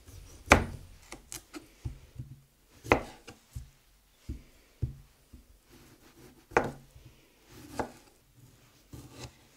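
Kitchen knife peeling and cutting kiwifruit on a cutting board: irregular knocks of the blade against the board, a few much louder than the rest, with soft scraping between them.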